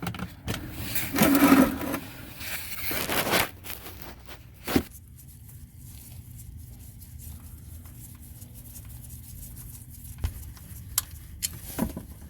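A 15 mm wrench scraping and clattering on a car's oil drain plug as it is worked loose over the first few seconds, with a sharp knock near five seconds. After that comes a steady low wash of engine oil draining into a catch pan.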